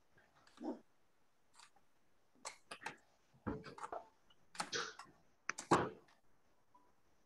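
Handling noise: a string of about a dozen irregular sharp clicks and light knocks, some in quick pairs and triplets, the loudest near the end.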